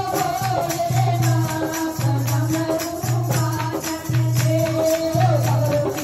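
Women singing a Hindi devotional bhajan through microphones and a loudspeaker, with hand clapping and jingling percussion keeping time. A low, steady beat repeats about once a second underneath.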